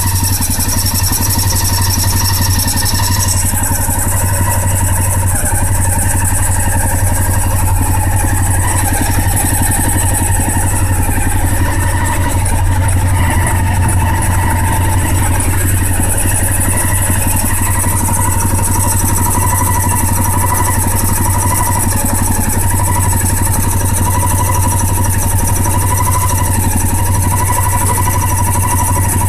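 Honda XRV750 Africa Twin's V-twin engine running at a steady idle.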